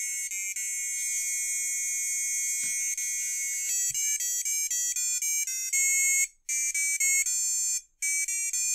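The Double Heart RGB LED kit's built-in buzzer plays a simple beeping electronic tune, one note at a time. The first notes are long and held; from about four seconds in the notes change quickly, with short breaks near the end.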